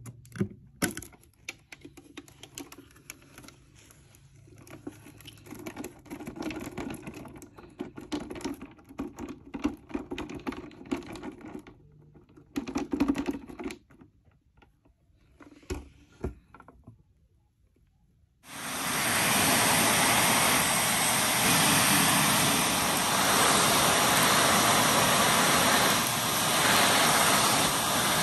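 Scattered light clicks and rustles of handling, then a short near-quiet pause. About eighteen seconds in, a Shark NV380 upright vacuum switches on suddenly and runs loud and steady as its hose tool is worked over carpet.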